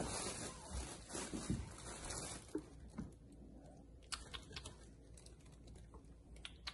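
Bengal kittens scuffling in play: a rustling scramble for the first couple of seconds, then scattered light taps and clicks of paws on a wooden floor.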